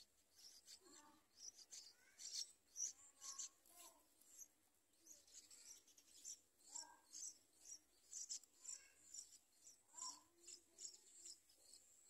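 Yellow-vented bulbul nestlings begging at the nest: faint, thin, high-pitched chirps repeated rapidly and irregularly throughout.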